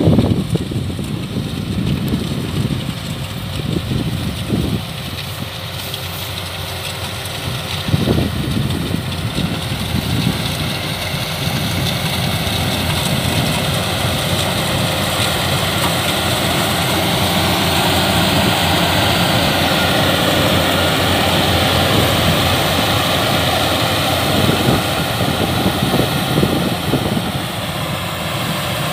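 Yanmar YH850 rice combine harvester running steadily as it cuts and threshes rice, its engine and threshing machinery making a continuous loud drone that grows a little louder about halfway through.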